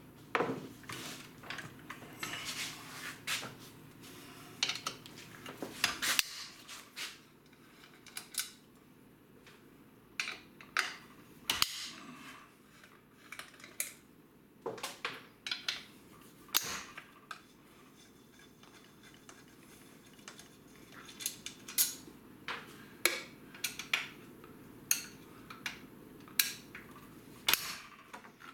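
Metal hand tools clinking and scraping on a Stihl MS462 chainsaw being taken apart, a long driver working at the muffler screws. Irregular sharp clicks and clatters come in scattered clusters.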